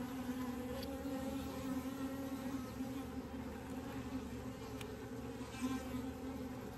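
Honeybee colony buzzing around an open hive: a steady, wavering low buzz with overtones, which sounds angry but comes from the large drone bees flying, not from a defensive colony.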